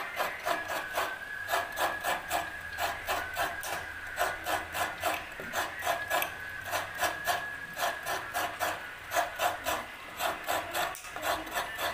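Fresh coconut half being scraped against a serrated coconut grater, the flesh coming away in gratings. Quick, even rasping strokes, about three a second.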